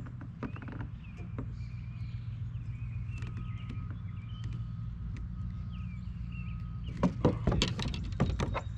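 Outdoor ambience: a steady low rumble with faint bird chirps over it, then a quick series of knocks and clatters near the end.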